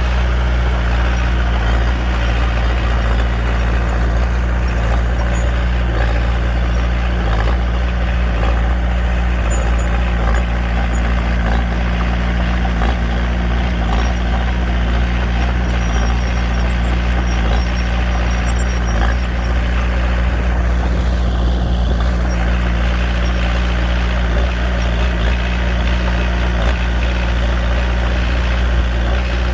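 Komatsu D21P mini bulldozer's diesel engine running steadily under a constant throttle, a low even drone with no change in speed.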